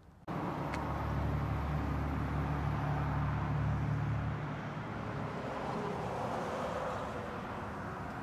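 Road traffic noise, a low vehicle rumble with a wider hiss above it. It starts suddenly just after the start, is strongest for the first four seconds or so, then eases a little.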